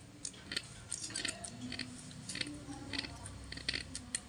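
Thin tin shims cut from a spray-paint can being trimmed and pressed into place by hand, giving a string of small irregular clicks and scrapes of light sheet metal.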